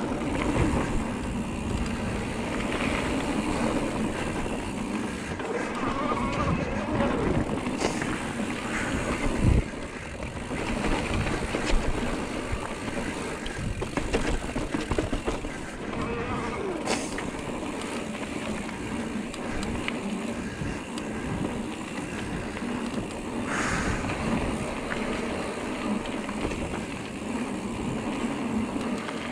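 Giant Trance E+3 electric mountain bike ridden down a dirt trail: tyres rolling and the bike rattling over the ground with a steady low rumble, and two sharp knocks about nine and a half and twelve seconds in.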